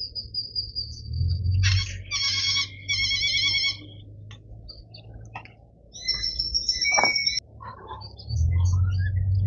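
Birds calling: clear whistled notes and warbling trills, several short phrases one after another, over a low steady rumble.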